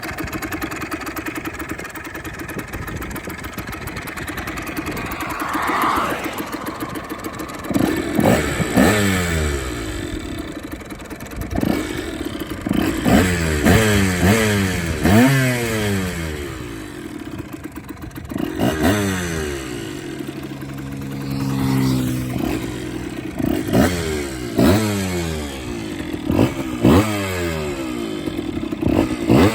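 Yamaha DT 80 LC II's freshly rebuilt two-stroke single, breathing through its original resonator and a modified Giannelli silencer, idling steadily. It is then blipped repeatedly, the revs shooting up and falling back to idle about a dozen times, with one longer held rev partway through.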